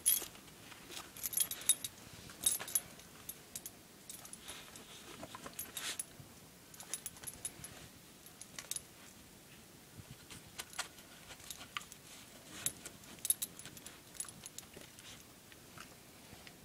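Metal fittings on a small dog's collar and leash jingling in scattered, irregular clinks as the dog shakes and chews a stuffed toy.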